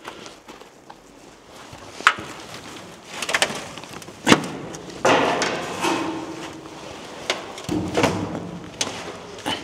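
Knocks, bumps and scuffs of a person climbing over a concrete window sill into a building. There are several sharp knocks, the loudest about four seconds in.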